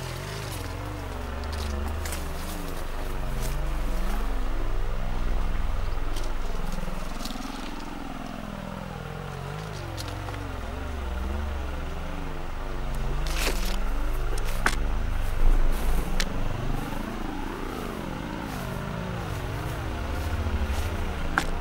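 Experimental electronic sound piece: a deep rumble under many warbling tones that slide up and down, with scattered sharp clicks and crackles that grow busier in the second half.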